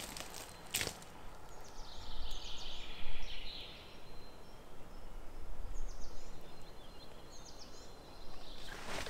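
Wind buffeting the microphone in gusts, loudest about three seconds in, with a bird calling over it: a drawn-out sweeping call about two seconds in, then a few short chirps later on. A single light click comes near the start.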